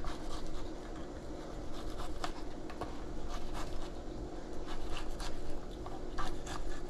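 Fillet knife working back and forth between the skin and the meat of a gafftopsail catfish fillet: soft, irregular scraping and slicing strokes as the skin is cut away.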